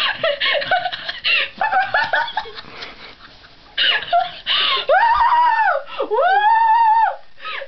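A young person laughing: choppy giggles, then breathy bursts, then two long, high-pitched shrieking cries near the end.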